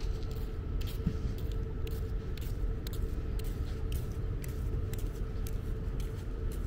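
Footsteps on a paved promenade, about two steps a second, over a steady low rumble and a faint constant hum.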